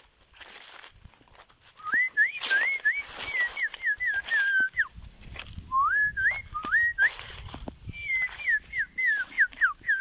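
A songbird whistling a song of clear, quick notes that hook up and slur down, in three phrases.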